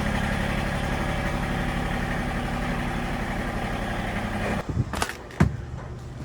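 An engine running steadily at idle, stopping abruptly about four and a half seconds in, followed by two sharp knocks.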